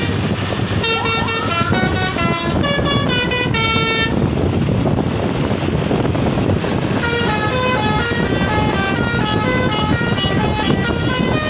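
Bus 'telolet' multi-tone air horn playing a tune of quick stepped notes, in two runs: from about a second in to about four seconds, and again from about seven seconds in, over steady engine and traffic rumble.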